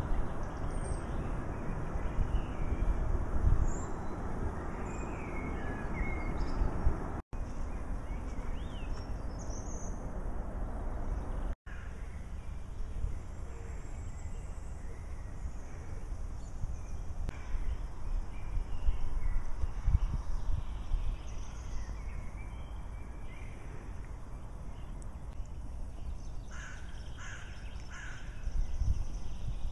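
Outdoor ambience of low wind rumble on the microphone with scattered small bird chirps; near the end a quick run of harsh corvid calls, several in about a second and a half.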